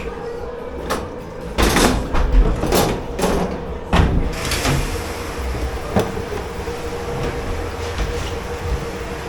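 Dishes and metal racks clattering and knocking in a commercial kitchen dish pit over a steady machine hum, with a heavy clunk about four seconds in followed by a steady hiss.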